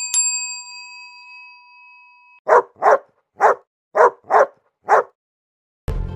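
Two quick bell dings that ring on and fade over about two seconds, then a dog barking six short times. Music starts right at the end.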